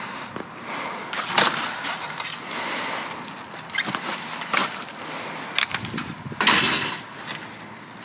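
Rummaging through discarded items: irregular clicks, knocks and rustling, with two louder scraping bursts about a second and a half in and near the end.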